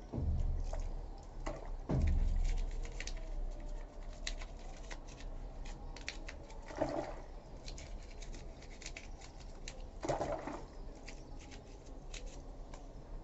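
Washing machine parts being washed by hand in detergent water: water sloshing and splashing, with two heavier surges near the start and about two seconds in, and many small clicks and scrapes of scrubbing and handling.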